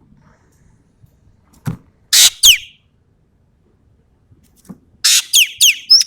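Sumatran ekek keling (common green magpie) giving loud, harsh 'tembakan' calls: a pair of sharp calls about two seconds in, then a quick run of four calls falling in pitch near the end. A soft knock comes just before the first pair.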